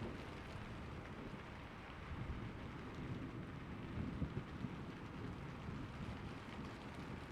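Steady rain falling, with low rumbles of thunder swelling under it a couple of times.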